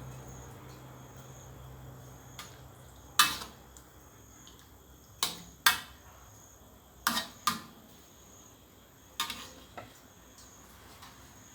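Metal cooking utensil clanking against a pot: about seven sharp knocks at uneven intervals, each with a short ring.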